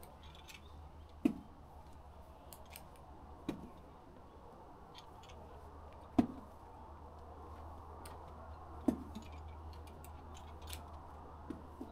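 Light clicking and jangling of climbing gear, carabiners and quickdraws on a lead climber's harness, as the climber moves up the rock. Five short sharp sounds come a couple of seconds apart, the loudest about six seconds in, over a steady low hum.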